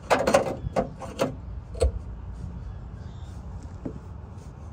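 A quick clatter of sharp knocks, then three more single knocks within the next second and a half, over a low steady rumble.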